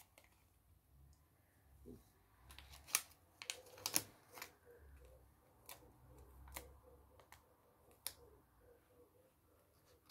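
Paper nail forms being peeled off their backing sheet and handled: a scatter of small, sharp clicks and crinkles, most of them between about three and eight seconds in.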